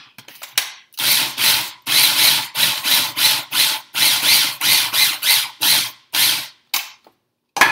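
Cuisinart mini food processor pulsed about a dozen times in short bursts, roughly two a second, chopping red onion, then two brief taps near the end.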